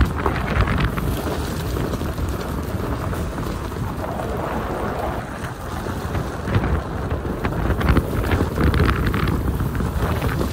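Mitsubishi Triton pickup driving along a gravel road: a steady low rumble with the crackle of the tyres rolling over loose gravel.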